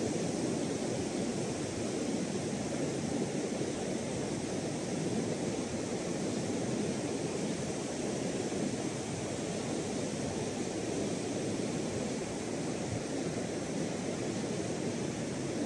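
Steady wash of sea surf breaking along an open sandy beach.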